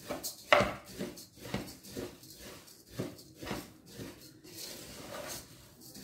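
Spoon stirring annatto seeds in fat inside a large aluminium pot: repeated scraping, rattling strokes against the metal, about two or three a second, at an uneven pace.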